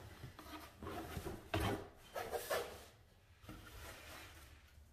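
A rigid cardboard gift box scraping and rubbing against the sides of a corrugated cardboard shipping carton as it is lifted out. The loudest scrapes come between about a second and a half and two and a half seconds in, and the handling is quieter after that.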